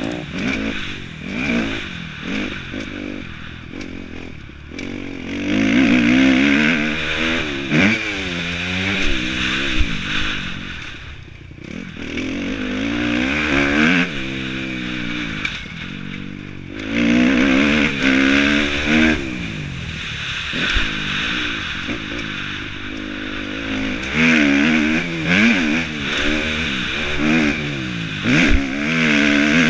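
Kawasaki motocross bike's engine heard close up from the rider's helmet, revving up and falling back again and again as the throttle is worked around the track, with a few brief lulls and some sharp knocks.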